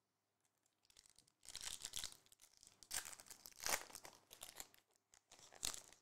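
Foil trading-card pack being torn open by hand, its wrapper crinkling and tearing in a run of rustles that starts about a second and a half in, with several louder tears along the way.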